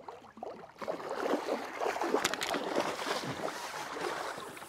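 Water splashing as a hooked carp thrashes at the surface and is drawn into a landing net, starting about a second in.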